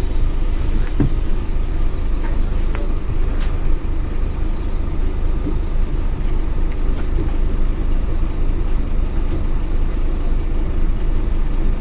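Cabin sound of a Scania OmniCity N230UD double-decker bus: its five-cylinder diesel engine runs steadily under the floor, with a low drone and a few light rattles from the bus interior.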